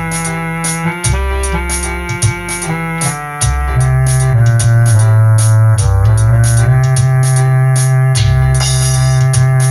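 Electronic keyboard playing a slow gospel instrumental: held chords over a strong sustained bass, with a steady drum beat and light cymbal ticks about two to three times a second.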